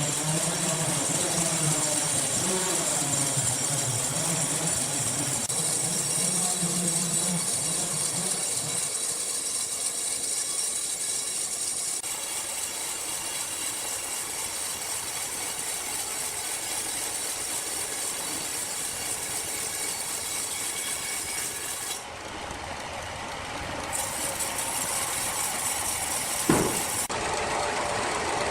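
Sawmill machinery running, with a steady high hiss and a motor hum that wavers in pitch over the first several seconds. The sound changes abruptly a couple of times near the end, with one sharp knock.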